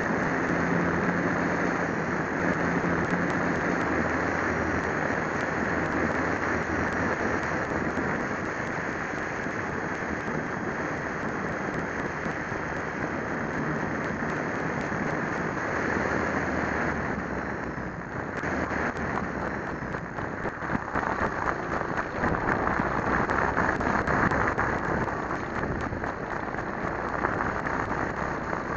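Wind rush and propeller noise from the Old Fogey RC plane in flight, picked up by the small onboard Syma X5C camera microphone. Past the middle it dips briefly, then comes back rougher and louder.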